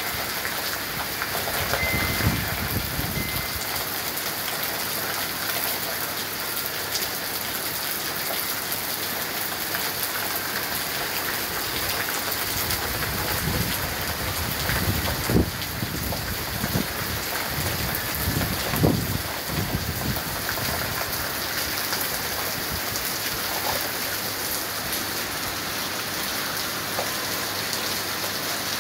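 Heavy rain pouring steadily onto a street and porch. There are low rumbles of thunder a couple of seconds in and again through the middle, with two brief louder peaks.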